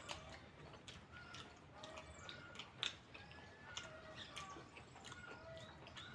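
Faint chirping of small birds, short repeated calls scattered throughout, with soft scattered clicks.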